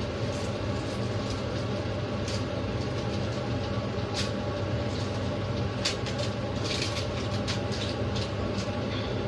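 A steady low mechanical hum, with scattered light crinkles and taps of aluminium foil as chicken wings are set down on a foil-lined baking tray.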